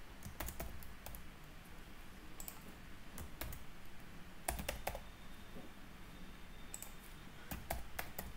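Typing on a computer keyboard: short runs of key clicks with pauses between them.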